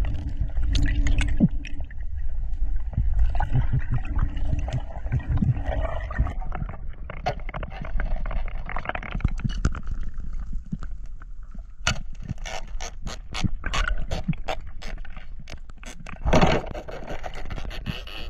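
Underwater noise picked up by a diver's camera: a low water rumble with scrapes and sharp clicks, the clicks coming thick and fast in the second half, and one louder knock about sixteen seconds in.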